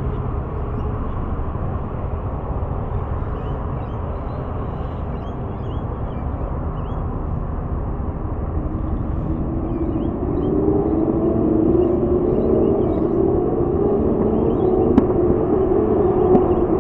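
A 'Bumblebee' light-rail tram approaching along the track, its hum growing louder from about halfway through, over a steady low rumble. Faint bird chirps are heard throughout.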